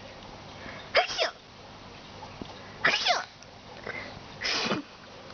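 A person sneezing three times, about a second and a half to two seconds apart, each a short loud breathy burst with a falling voice, alongside a baby's delighted squealing laughter.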